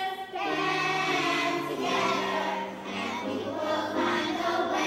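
Children's choir singing a slow song in long held notes.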